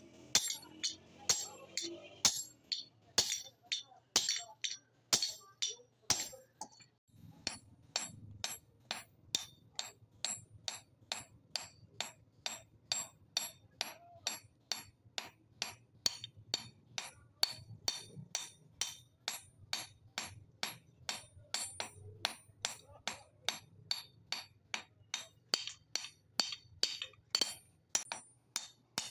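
Hand-hammer blows on a red-hot hatchet head resting on a steel anvil, reshaping the hot blade. Each blow is a sharp metallic clink. The blows come irregularly at first, then settle into a steady beat of about two to three a second.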